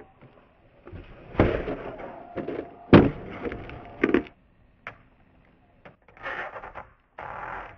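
Skateboard taildrops off a wooden ledge: the board knocks against the wood and its wheels clack down on asphalt several times, loudest about three seconds in. Between the knocks there are stretches of wheels rolling.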